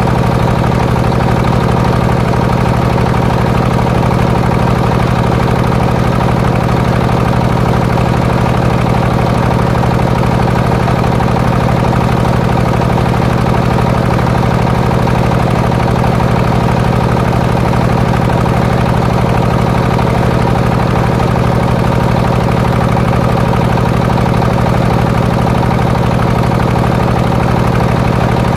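Engine driving a homemade circular sawmill, running at a steady speed throughout with no change in load.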